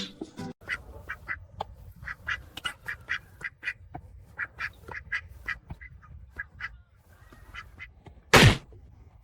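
Ducks quacking: many short calls in quick, irregular succession. About eight seconds in comes one brief, loud rushing noise.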